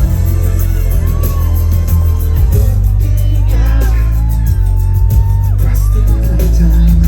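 Live pop-R&B band with a heavy bass and a singer's sung lines, some held and gliding, amplified through a concert PA, with whoops and shouts from the crowd.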